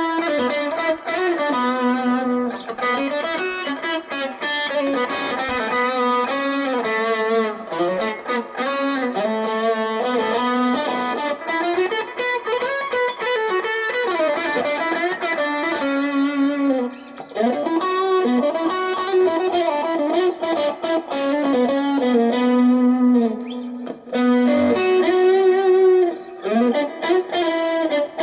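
Stratocaster electric guitar playing a single-note lead melody with sustained notes and string bends, recorded raw through a phone's microphone. It pauses briefly twice, about two-thirds of the way through and again a little later.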